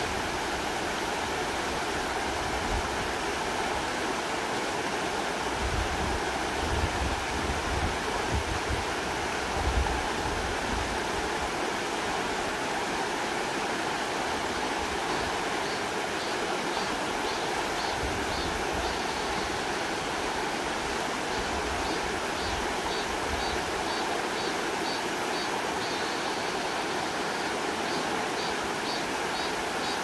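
Shallow, rocky mountain stream rushing steadily over stones: an even, continuous hiss and splash of fast water.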